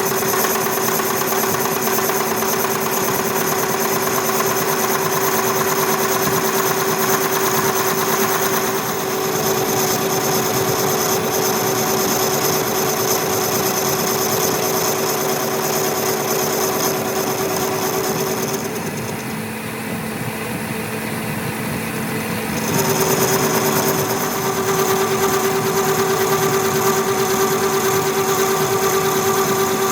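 A machine-shop machine running steadily with a constant whine of several fixed tones. The whine drops away for a few seconds about two-thirds of the way in, then comes back.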